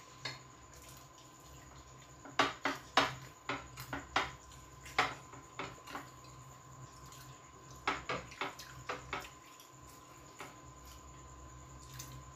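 Eating by hand from glass plates: fingers working rice against the glass give sharp clicks and taps in two flurries, about two seconds in and again about eight seconds in, over a faint steady hum.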